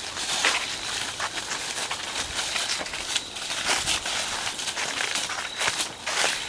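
Footsteps crunching through dry fallen leaves on a woodland path, several walkers at once, making an uneven run of crisp crunches about twice a second.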